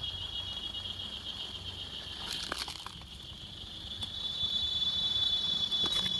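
Forest insects droning in a steady, high-pitched chorus that swells and rises slightly in pitch about four seconds in, with a few light clicks and knocks.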